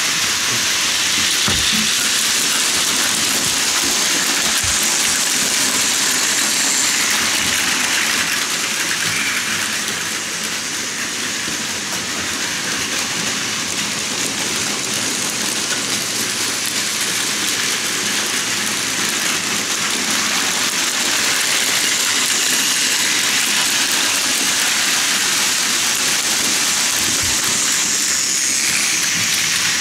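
Plarail Advance toy trains running on plastic track: a steady whirring and rattling of their motors, gears and wheels on the plastic rails, a little louder in the second half as a train passes close.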